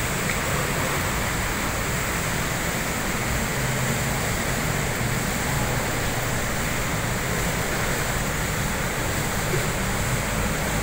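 Steady rushing splash of a large fountain's jets falling into its basin, with a low traffic hum beneath.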